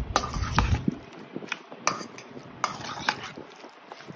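A metal spoon stirring raw chicken with curd and spices in a stainless steel bowl: several sharp clinks of spoon on steel, with a low handling rumble in the first second.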